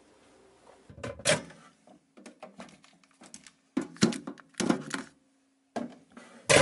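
Cupboard door and items on a shelf being knocked and moved about by someone rummaging through them: a run of irregular knocks and clunks, loudest about a second in and again around four to five seconds in.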